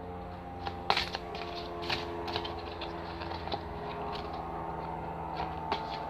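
Gold-edged oracle card deck being shuffled in the hand: scattered soft clicks and slaps of cards, the sharpest about a second and two seconds in, over a steady low hum.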